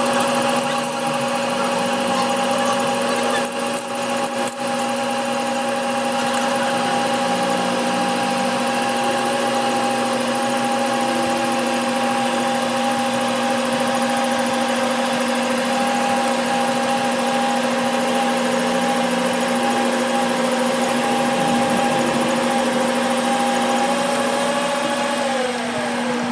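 Electric workshop machine running steadily with a constant multi-tone hum; about a second before the end its pitch slides down a little.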